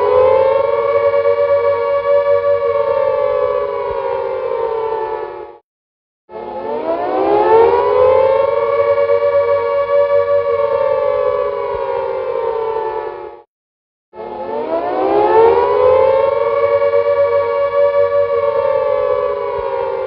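Air-raid warning siren sounding in long wails of about seven seconds. Each rises in pitch, holds steady, sags slightly and then cuts off sharply. After a short break a new wail starts, twice.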